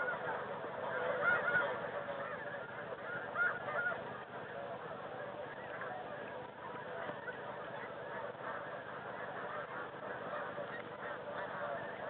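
Snow geese calling: a dense, steady chorus of many overlapping honking calls, with a few louder individual calls about a second in and again around three and a half seconds in.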